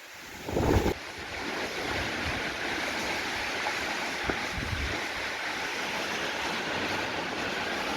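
Steady wind blowing across an exposed mountain summit, with a gust buffeting the microphone about half a second in.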